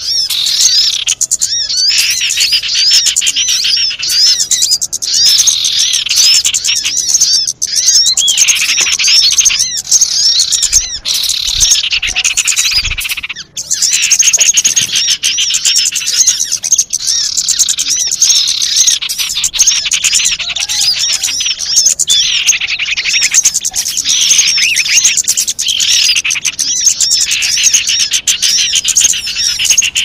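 Bird-lure recording of many small wild birds: dense, unbroken high-pitched chirping and twittering in rapid short notes, with a brief break a little under halfway through.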